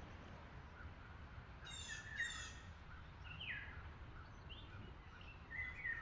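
Wild birds calling: a pair of harsh, raspy calls about two seconds in, a call sliding downward in pitch around the middle, and a few short chirps near the end, over a low steady background rumble.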